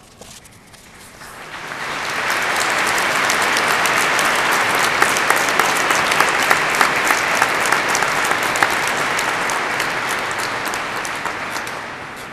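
Audience applauding: the clapping swells over the first two seconds, holds steady with single sharp claps standing out, then dies away near the end.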